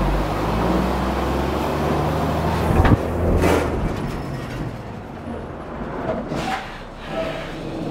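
Diesel semi truck running while shelled corn pours from an overhead holding bin into its grain trailer as the load is topped off. There is a sharp knock just before three seconds in, and after it the sound drops to a quieter steady rumble.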